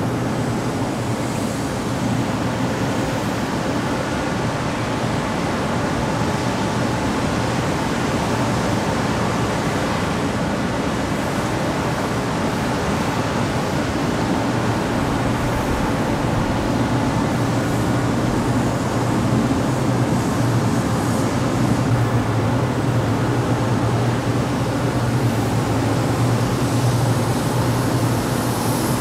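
Industrial exhaust fan running steadily: an even rush of moving air over a constant low hum.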